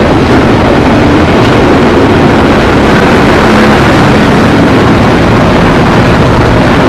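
Diesel locomotive engine running loudly and steadily close by, without let-up.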